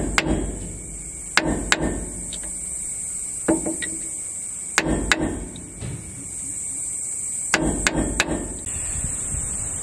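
Hammer striking a pin punch to stake the pinion nut on a Toyota Landcruiser's rear differential. About ten sharp metal strikes come in ones, pairs and threes, with pauses between.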